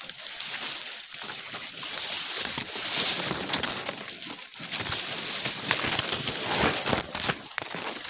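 Dry and green grass stems rustling and crackling as they are pushed aside close to the microphone, in irregular swells.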